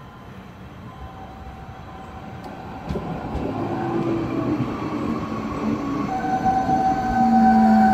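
SBB electric multiple-unit train approaching and running in alongside the platform, growing steadily louder. A steady whine of several tones strengthens in the second half and is loudest near the end, then the sound cuts off suddenly.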